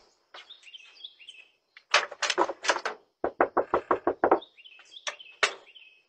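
Someone knocking hard and repeatedly on a front door: a group of about four knocks, then a rapid run of about eight, then two single knocks near the end. Birds chirp faintly in the background.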